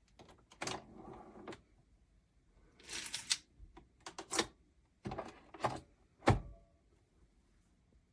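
Handling noises: a series of separate clicks and knocks with a few short scrapes or rattles, the loudest knock about six seconds in.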